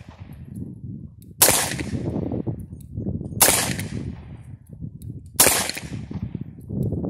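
A .44 revolver firing single shots about two seconds apart, three in all. Each sharp report is followed by a long rolling echo.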